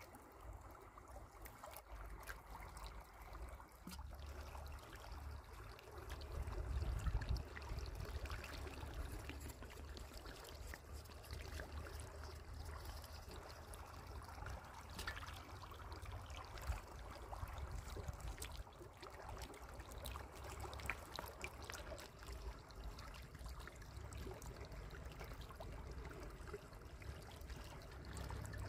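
Shallow water trickling along a sandy channel, with small splashes from climbing perch wriggling through it. A low rumble underlies it and swells about six seconds in.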